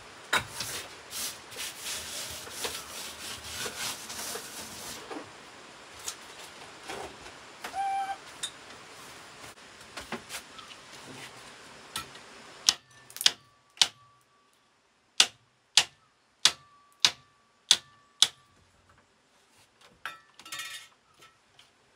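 Rustling and scraping with many small clicks, then a run of about nine sharp, evenly spaced knocks with a faint ring, roughly one every 0.6 seconds, and a few scattered knocks after.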